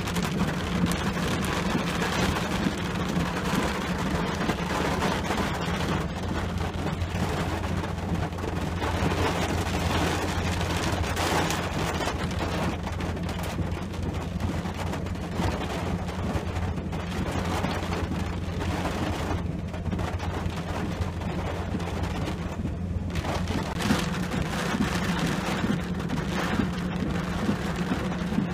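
Steady rain falling on a pickup truck's roof and windshield, heard from inside the cab, over a steady low hum.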